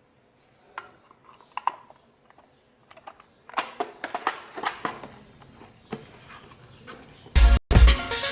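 Scattered clicks, taps and rustling of packaging and a small power tool being handled, growing busier about halfway through. Loud background music with a heavy beat cuts in near the end.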